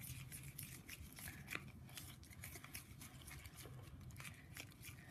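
Spoon stirring a thick slime mixture in a ceramic bowl: faint, irregular clicks and scrapes as it knocks and drags against the bowl.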